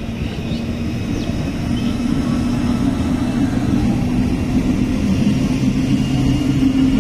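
MEMU electric multiple unit passing close by as it pulls away: traction motors humming with a pitch that edges slowly upward over the rumble of wheels on the rails. It grows louder as the coaches go by.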